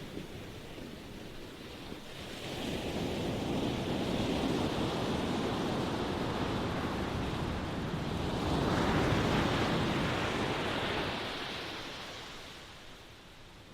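Ocean waves breaking and washing in: the surf swells about two seconds in, a second, louder wave breaks about nine seconds in, and the wash fades away near the end.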